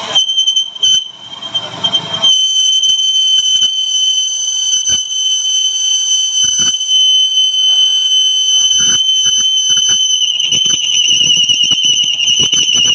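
High-pitched steady squeal of a lathe cutting tool on metal, warbling from about ten seconds in, with scattered ticks and clicks beneath it.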